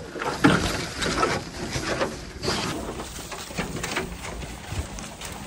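Footsteps rustling and crunching irregularly through dry fallen leaves and undergrowth on a forest trail.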